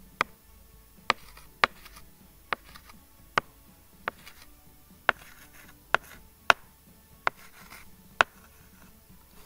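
About eleven sharp, irregular clicks, roughly one a second: a digital pen tip tapping on a touchscreen while handwriting.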